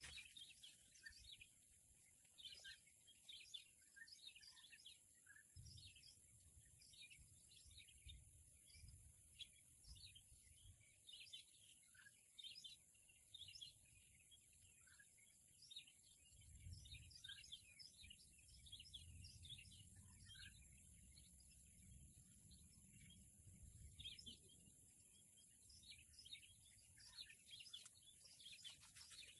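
Small birds chirping faintly and busily, short high chirps several times a second, over a steady high hiss, with an occasional low rumble.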